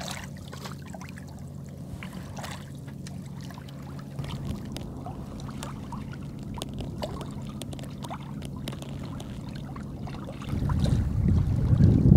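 Water tinkling and lapping along the hull of a Bavaria 36 sailing yacht moving slowly, at under 2 knots, with small scattered ticks and trickles over a steady low hum. About ten seconds in, wind buffeting the microphone comes in louder.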